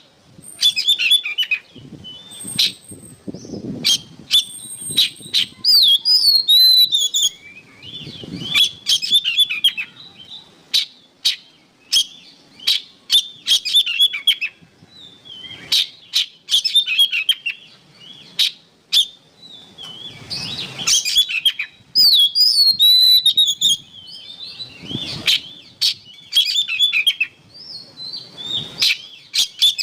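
Oriental magpie-robin singing vigorously: a rapid, varied run of chirps and whistled phrases with sharp clicks between them.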